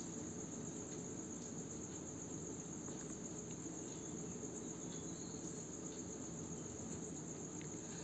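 Faint, steady background noise: a constant high-pitched whine over a low hum, with no distinct event.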